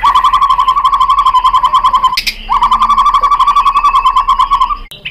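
White-rumped shama (murai batu) singing two long, fast rattling trills on a single pitch. The first breaks off about two seconds in and the second stops just before the end.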